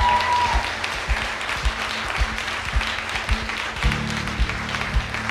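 Background music with a steady beat, about two beats a second, the bass deepening about four seconds in, laid over guests applauding.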